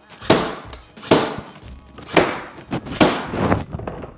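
Milwaukee M12 cable stapler firing staples over cable: four sharp snapping shots about a second apart.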